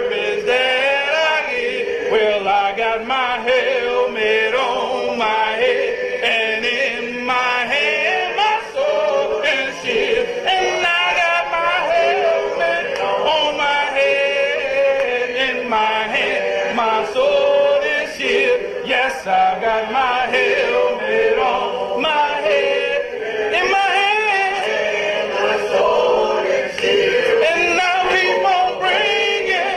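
A church congregation singing a hymn together, with a man's voice out in front.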